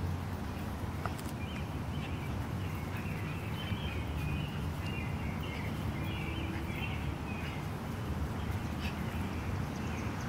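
Outdoor ambience: a steady low rumble with birds chirping, the chirping thickest between about three and seven seconds in.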